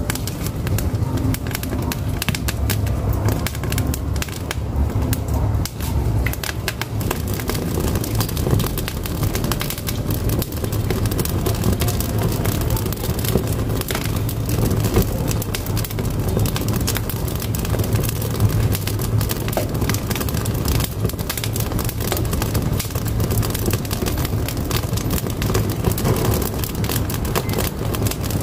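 Firewood burning in a wood-fired cooking stove: a steady low rumble of the fire with many small, sharp crackles and pops throughout.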